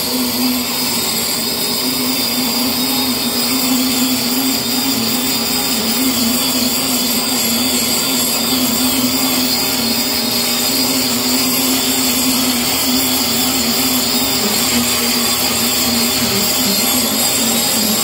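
4-inch angle grinder with a cup wheel grinding old adhesive off a concrete subfloor, running steadily with its pitch wavering slightly as it is pushed across the surface. A Hilti vacuum runs along with it, drawing off the dust through a hose on the grinder.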